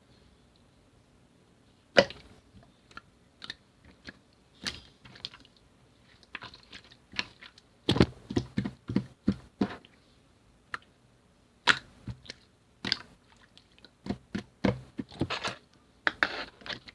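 A tough, chewy slime being worked by hand, giving irregular sticky clicks and pops, some single and some in quick clusters. The sharpest pop comes about two seconds in.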